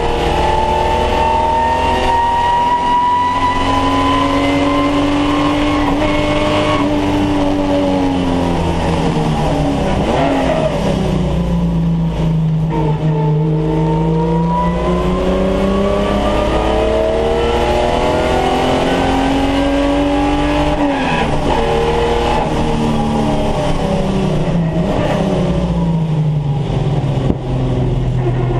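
Holden VT Commodore saloon race car's V6 engine heard from inside the cabin under racing load, its pitch climbing and holding on the straights, then dropping for a few seconds as the car slows for corners, several times over, above a steady rumble of road and wind noise.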